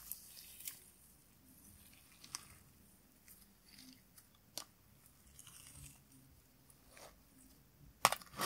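Clear slime packed with chunky glitter being kneaded and squished by hand: soft, irregular crackling and crunching, with a few sharper clicks and a louder cluster of them near the end.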